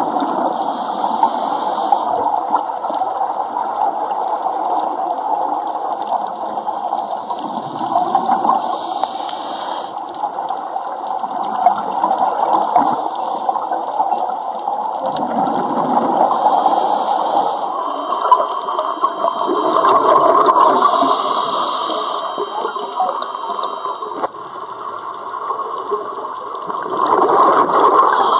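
Scuba diver's regulator breathing, recorded underwater: a gurgling rush of exhaled bubbles that swells with each breath, and a short hiss at each inhalation, about every four to eight seconds.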